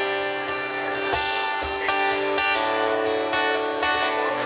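Acoustic guitar strummed and picked in an instrumental break between sung lines, with held notes ringing under the strokes.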